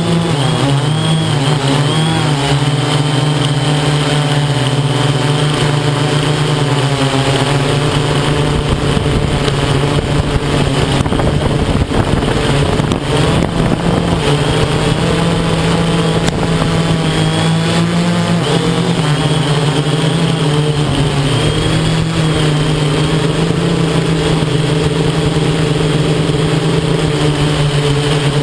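Electric motors and propellers of an XAircraft X650 V8 multirotor in flight, heard close up from its onboard camera: a steady buzzing hum whose pitch wavers slightly as the motors change speed, with a rougher, noisier stretch about halfway through.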